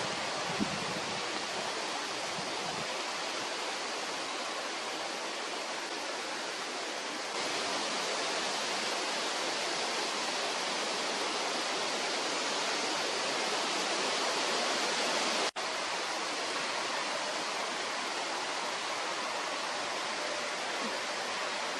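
Steady hiss of falling rain, a little louder from about seven seconds in, with a momentary dropout a little past the middle.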